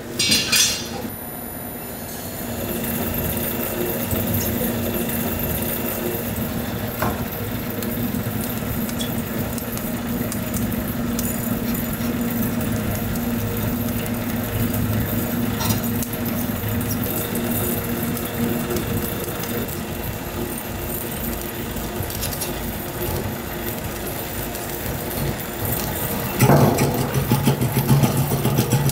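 Snack-factory machinery running with a steady hum and a few light clinks. Near the end a louder, lower-pitched machine hum sets in.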